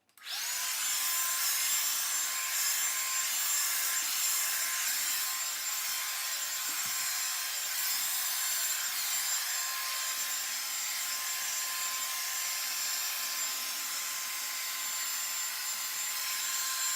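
Revlon Salon One-Step hair dryer brush switched on and running on its cool setting: a steady fan hiss with a high motor whine that rises briefly as it spins up, then holds steady.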